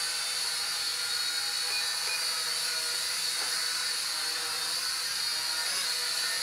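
Polaroid PL300 toy quadcopter hovering, its four small motors and propellers giving a steady high-pitched whine.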